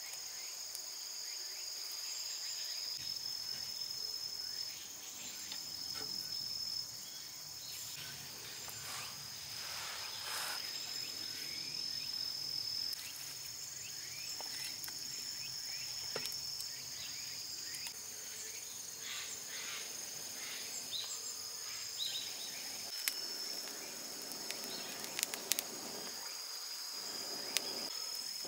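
Crickets or other insects trilling steadily at a high pitch, the trill breaking off briefly now and then. A few sharp clicks and crackles are scattered through it, several close together near the end.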